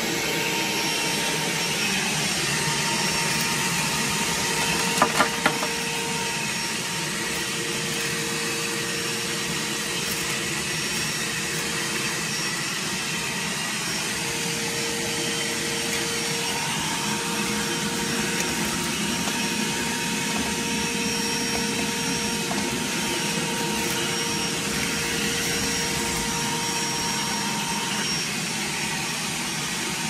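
Vacuum cleaner running steadily with a constant whine, sucking through a homemade bucket cyclone separator as its wand picks up debris off a concrete floor. A few sharp clicks come about five seconds in.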